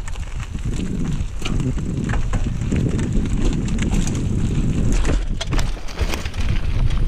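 Mountain bike rolling fast over a rough dirt and rock trail: a steady rumble of tyres and wind buffeting the helmet-mounted action camera's microphone, broken by frequent knocks and rattles from the bike over roots and stones.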